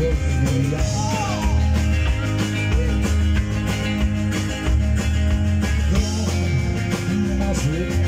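A rock band playing live: electric guitars, bass and a drum kit with cymbals, with a male lead vocal sung into the microphone over it.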